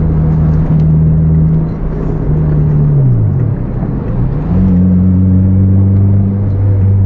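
Vehicle engine and road noise heard from inside a car's cabin at speed. The engine note runs steadily, dips in pitch about three seconds in, then climbs and holds at a higher steady pitch.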